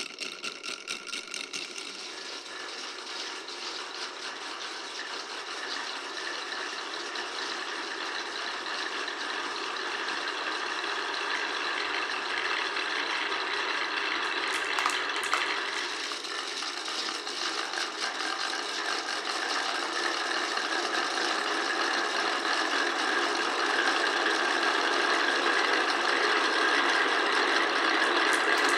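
Many glass marbles rolling and clattering along a wooden marble run, a dense unbroken rattle that grows gradually louder.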